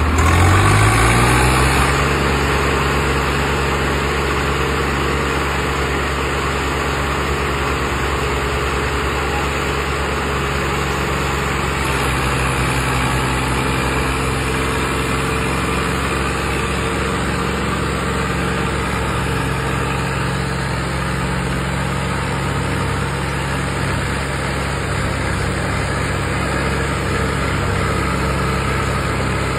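Diesel tractor engine pulling a heavily loaded soil trolley. Its revs rise over the first second or two, then it runs steadily under load.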